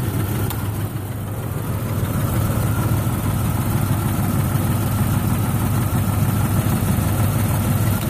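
1996 Jeep Grand Cherokee's 4.0-litre straight-six engine idling roughly and unevenly, with the engine shaking: the owner puts it down to misfires on all cylinders and says it runs really rich.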